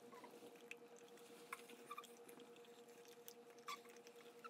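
Yellow Labrador puppy chewing a dog cupcake: faint, scattered wet clicks of chewing over a steady hum of room tone.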